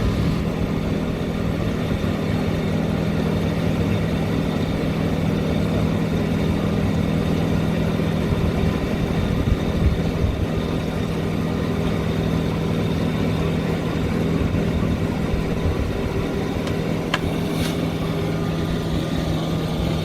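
A heavy engine running steadily at constant speed, with a brief click about 17 seconds in.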